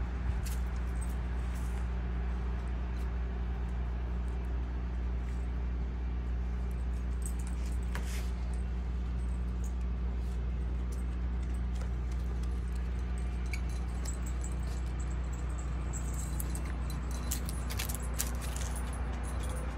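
A steady low machine hum runs throughout, with the light metallic jingle of a puppy's collar ID tag now and then as it moves.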